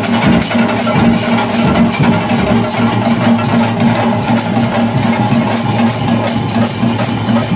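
Loud music with drums over a steady held drone.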